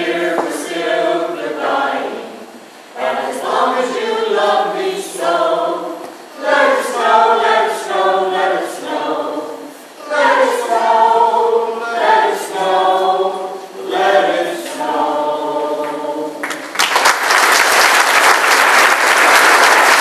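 Mixed-voice caroling choir of men and women singing a Christmas carol a cappella. Near the end the song finishes and the audience breaks into applause.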